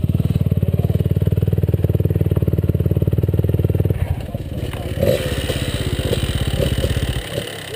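Motorcycle engine running steadily at an even throttle. About four seconds in, the engine note thins and a hiss with scattered clattering joins it, likely the bike splashing through the river crossing. The engine drops away near the end.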